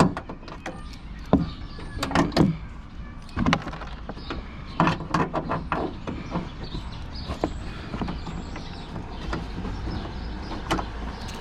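Irregular metallic clicks and knocks of a hand tool working at a 10 mm bolt in a car's trunk-latch area, over a steady low rumble.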